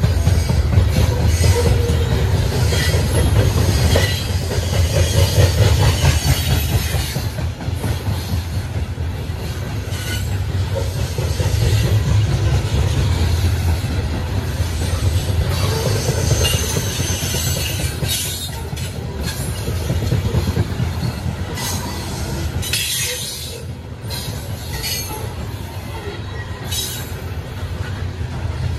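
Freight cars of a Norfolk Southern train rolling past close by: a steady low rumble of wheels on rail, with brief high-pitched wheel squeals now and then, the clearest about halfway through and near the end.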